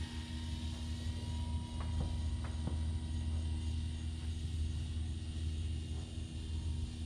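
Steady low wind rumble on the microphone, with a faint steady hum from the electric motor and propeller of a small RC fixed-wing plane in flight, and a few faint ticks about two seconds in.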